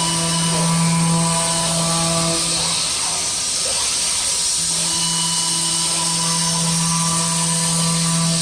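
CNC machine tool cutting the S-curve tracks of a CV-joint inner race: a steady high hiss with a low steady machine tone that drops out about two and a half seconds in and comes back about two seconds later.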